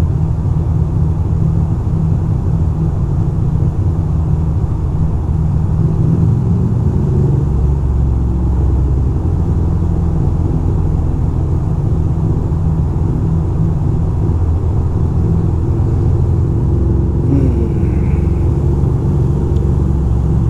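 2006 Ducati Monster 620's air-cooled L-twin engine running steadily inside a road tunnel, with the rumble of surrounding traffic. The low rumble grows stronger about seven seconds in.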